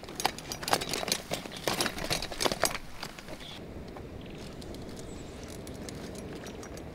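Folding camping wagon clattering and rattling, irregular knocks from its wheels and frame as it is pulled over bumpy grass; after about three seconds the clatter stops, leaving a steady outdoor hush.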